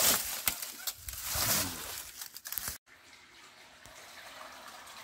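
Footsteps crunching and rustling through dry leaves and twigs, with irregular crackles. About three seconds in, the sound cuts off suddenly and a faint steady hiss follows.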